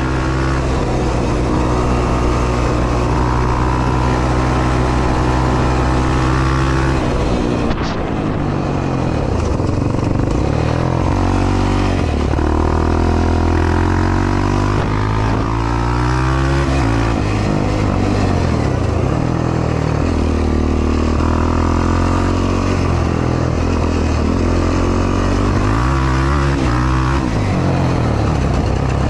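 Yamaha YFZ450R's single-cylinder four-stroke engine under race throttle. Revs are held high and steady for the first several seconds, the throttle is shut suddenly about eight seconds in, and then the revs rise and fall over and over.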